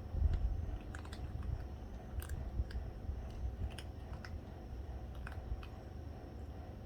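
Cats chewing food, with scattered small crunchy clicks, a few each second, over a low steady rumble.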